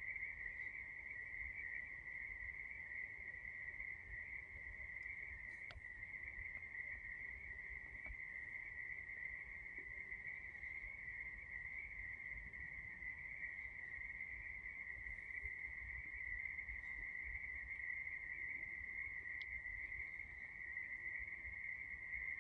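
Dense night chorus of calling animals: one steady, unbroken high-pitched trill that holds the same pitch throughout.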